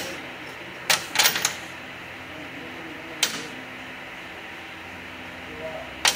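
Short sharp metal clinks of bolts and small parts handled while unbolting the valve body of a Nissan RE0F10E (JF017E) CVT. There is one at the start, one about a second in, a quick run of three just after, another near the middle and one at the end, over a steady background hum.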